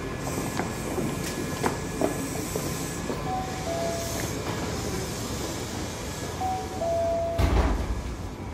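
Rail station platform noise beside a stopped train as passengers step off, with scattered small knocks. A descending two-note electronic chime sounds twice, a few seconds apart, and a loud deep thump comes near the end.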